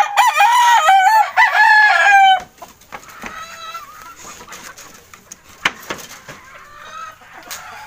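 Gamefowl rooster crowing loudly once, a call of about two and a half seconds, followed by fainter crowing and clucking and a single sharp click.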